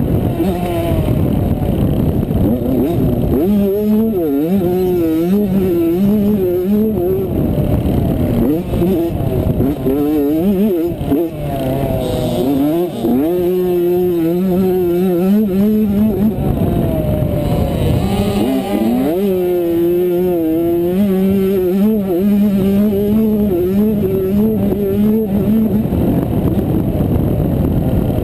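85cc two-stroke motocross bike engine heard from the rider's helmet, revving up and dropping back over and over as the bike accelerates, shifts and slows through the track's corners.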